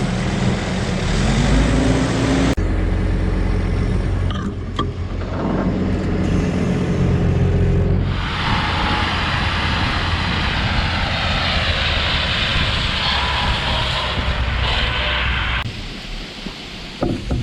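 Combine harvester running with a steady low engine hum. In the middle stretch a loud rushing noise joins in, and the sound changes abruptly a few times.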